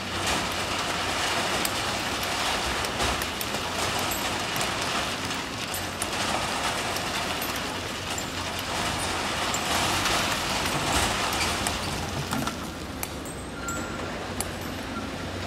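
Diesel engines of SANY crawler excavators running under load while their buckets dump rock and sand into steel dump-truck beds, with many small knocks of stones clattering. The noise swells as loads are tipped, about the start and again near the two-thirds mark.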